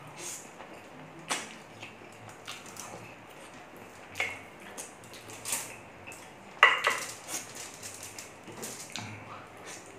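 Eating saucy pork ribs by hand close to the microphone: chewing and mouth smacks with scattered short clicks, and a sharp clink against the plate about six and a half seconds in, the loudest sound.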